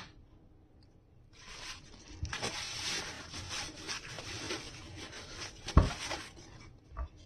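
Kitchen paper towel rustling and crinkling as it is rubbed over a guava to dry it. A few dull knocks of the fruit against a wooden cutting board come through, the strongest about six seconds in.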